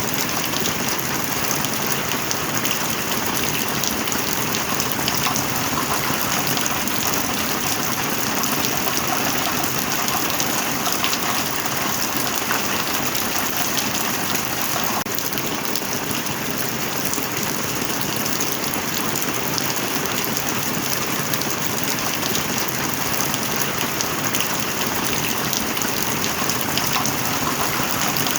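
Heavy, steady rain: a dense, unbroken hiss of drops landing on a surface, with no let-up.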